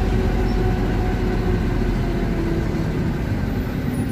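Mercedes-Benz 1218 truck's diesel engine running steadily as the truck drives through town, a low, even drone.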